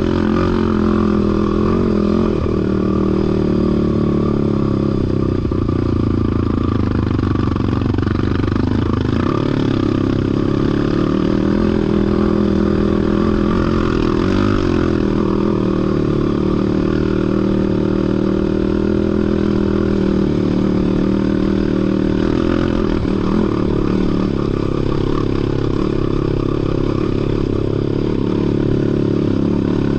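Off-road vehicle engine running under load, its pitch falling and rising again several times as the throttle is eased off and opened.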